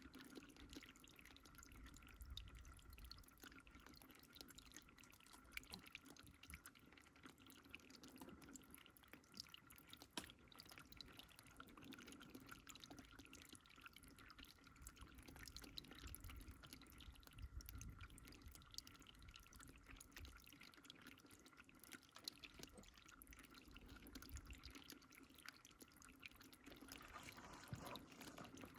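Faint water trickling and dripping: a low, steady wash scattered with many small drip ticks, over a faint steady hum.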